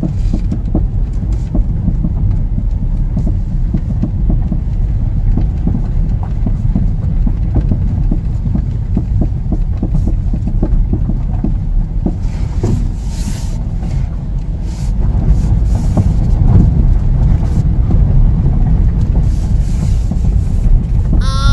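Car driving over a bumpy road: a heavy, continuous low rumble of road and wind noise, with frequent small knocks and rattles from the front suspension. The owner traces the rattle to a loose, worn stabilizer link and worn tie rod ends.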